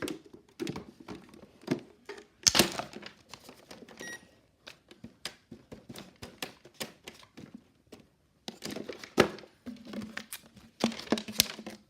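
Irregular clicks and knocks of hard plastic as a toy microwave is handled, with a short electronic beep about four seconds in.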